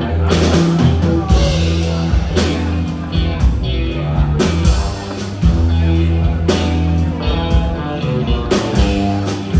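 Live rock band playing, with guitar over sustained bass notes.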